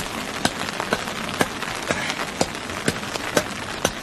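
A wooden stake being pounded into a canal bed by hand to anchor a fish net, sharp knocks about two a second, over the steady rush of flowing floodwater.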